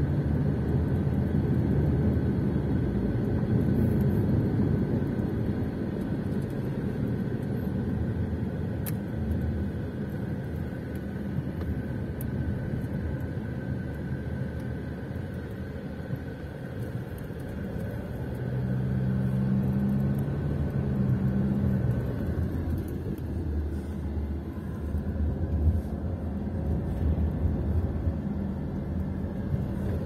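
Cabin noise of a Hyundai i40 1.6 diesel on the move: a steady low engine drone mixed with tyre and road noise, the engine note standing out more strongly about 19 to 22 seconds in.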